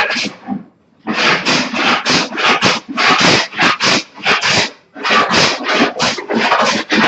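Rapid back-and-forth hand strokes rubbing across a wooden panel as it is levelled, about three or four strokes a second, with two short pauses.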